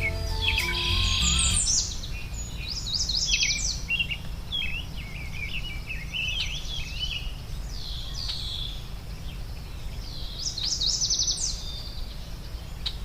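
Songbirds singing: many quick chirps and short trilled phrases, high-pitched, over a steady low hum. Soft music notes fade out in the first two seconds, leaving the birdsong alone.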